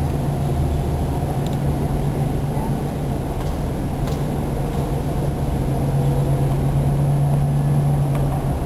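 Steady low engine hum and road noise heard from inside a moving car, a little louder for a couple of seconds near the end.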